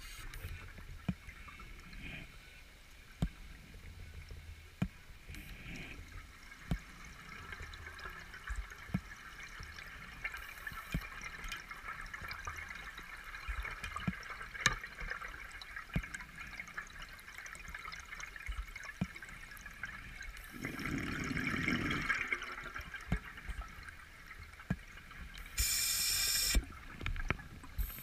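Underwater ambience heard through a camera housing on a rebreather dive: a faint watery hiss with scattered sharp clicks. There is a louder burst of bubbling about three quarters of the way in, and a brief high hiss near the end.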